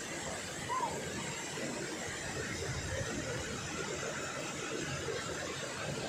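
Waterfall streams spilling into a rock pool: a steady rushing, splashing water noise, with one brief high chirp under a second in.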